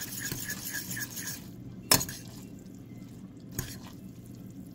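A metal fork scraping and clinking against a stainless steel saucepan while tossing rice noodles in sauce. There are quick, even scraping strokes at first, then one sharp clink about two seconds in and a lighter one a little later.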